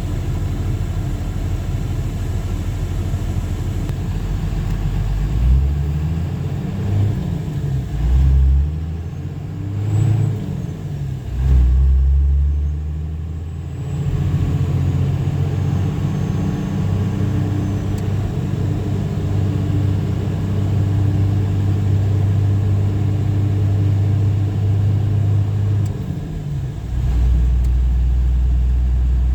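A Dodge's engine and road noise heard from inside the cab while driving, the engine pitch rising and falling several times in the first half as it accelerates and eases off, then settling into a steady drone while cruising.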